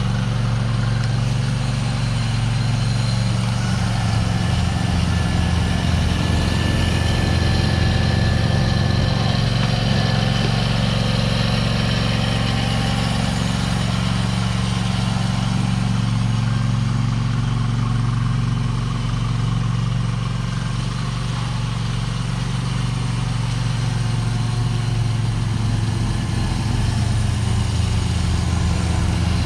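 Snow blower engine running steadily, with a slight dip in level about two-thirds of the way through.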